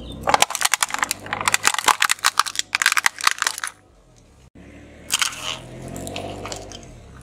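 Plastic toy jet ski cracking and snapping under a car tyre: a dense run of sharp cracks for about three and a half seconds. After a short lull, a fainter crunch as the tyre rolls over a small object.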